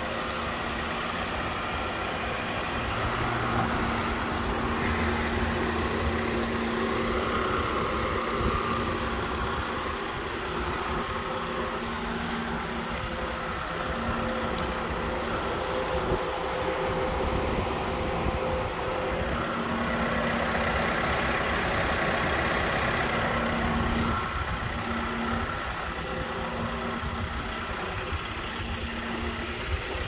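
Volkswagen Crafter van running steadily at idle, its hum growing louder and quieter in turns.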